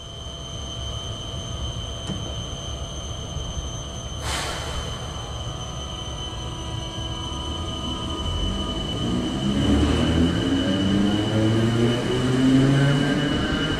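Irish Rail 8100 class DART electric train, a chopper-controlled electric multiple unit, pulling away from a station platform. A steady high whine runs throughout, with a brief hiss about four seconds in. From about eight seconds in, the traction motor whine climbs steadily in pitch and grows louder as the train accelerates.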